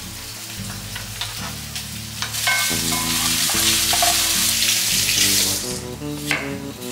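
Food hits hot oil in a frying pan about two seconds in and sizzles loudly for about three seconds. Before and after, a kitchen knife taps in separate strokes on a wooden chopping board. Soft background music plays underneath.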